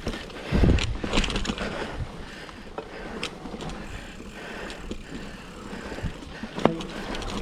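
Full-suspension mountain bike, a 2007 Cannondale Rush, rolling over a dirt trail: tyres on dirt, chain and frame rattling and scattered clicks. There is a low rumble about half a second in, and a brief squeak near the end.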